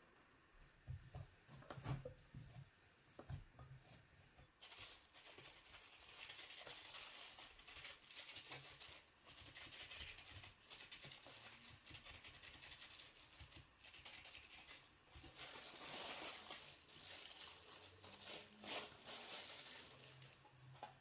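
Soft kitchen handling noises from baking: a few light knocks and taps early on, then a long stretch of quiet rustling, crinkling and scraping that rises and falls.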